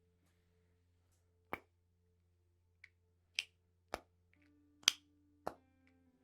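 Water droplets plinking: six sharp, separate drips at uneven intervals, the loudest a little under five seconds in, over a faint steady low hum.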